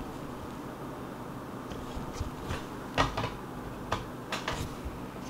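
A few light clicks and knocks from hard plastic PSA graded-card slabs being handled, the loudest about three seconds in, over a faint steady hum.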